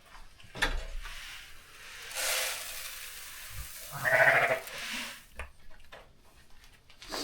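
A North Country Cheviot sheep bleats once, about four seconds in; this is the loudest sound. Before it come a knock and a rustling hiss.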